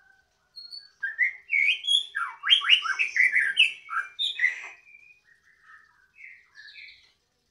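Caged songbird singing loudly: a rapid run of varied whistled and chattering notes that gives way to a few softer notes near the end.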